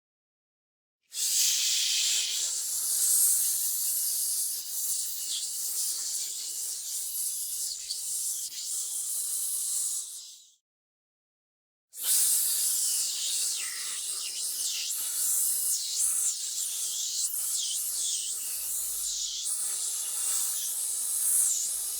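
Steady hissing noise in two long stretches, broken by about a second of silence.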